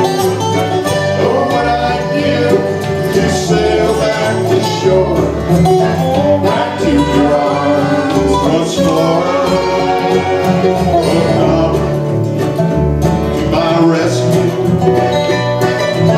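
Acoustic band playing a bluegrass-country song live: accordion, mandolin, acoustic guitars, upright bass and lap steel guitar together, with a steady plucked bass pulse underneath.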